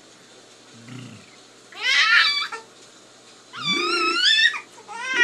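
Baby's high-pitched squeals: two long, wavering squeals about two and four seconds in, with a faint short sound before them.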